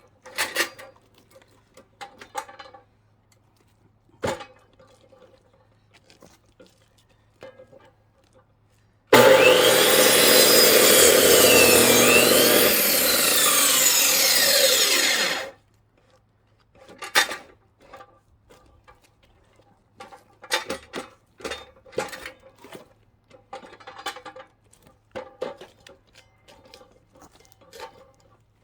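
Power saw cutting into a log for about six seconds, its pitch dipping and rising under load, then winding down. Scattered knocks and clunks of wood being handled come before and after.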